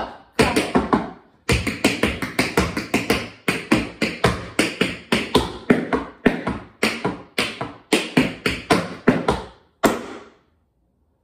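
Tap shoes dancing a fast tap combination: sharp metal taps on a floor board in quick rhythmic runs, with a short pause about a second in. The tapping stops about a second before the end.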